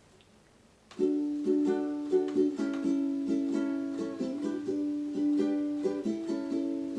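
Ukulele strumming chords in a steady rhythm, starting suddenly about a second in after near silence: the instrumental opening of a song, played before the singing begins.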